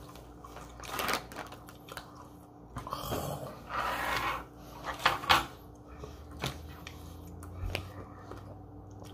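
Scattered light clicks, taps and rustles of things being handled on a tabletop, with a longer rustle about four seconds in.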